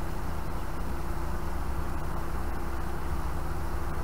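Narrowboat's engine running steadily while under way, a constant low hum with a steady drone.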